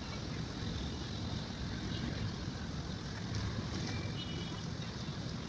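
Wind buffeting the microphone, a steady fluttering rumble over a faint hiss, with a brief high chirp about four seconds in.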